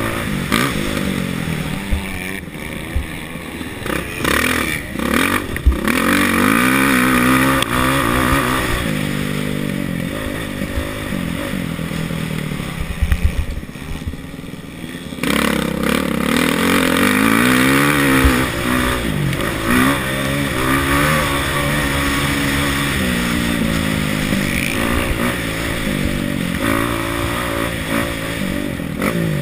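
Kawasaki KX450F single-cylinder four-stroke motocross engine being ridden hard, its pitch rising and falling as the throttle opens and closes through the corners and straights. It eases off around the middle, then picks up sharply again, with short knocks and clatters from the bike over the ruts.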